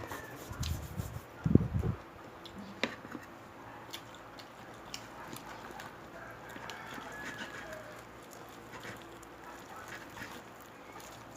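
Close-up eating sounds of crispy pata (deep-fried pork knuckle): a few heavy thumps in the first two seconds, then scattered crisp clicks and crunches of chewing.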